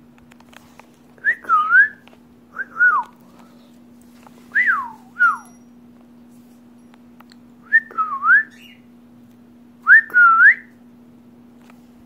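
Clear whistling in five short phrases, each of two or three notes that swoop down and back up, a couple of seconds apart.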